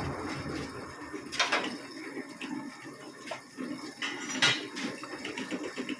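Metal parts and tools clinking and knocking, with two sharper metallic strikes about a second and a half in and again about four and a half seconds in, over lighter clatter.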